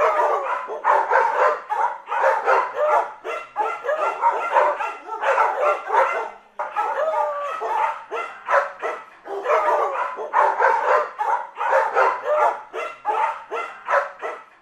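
Dogs barking hard and continuously, the barks coming several a second and overlapping, with higher yelping cries mixed in.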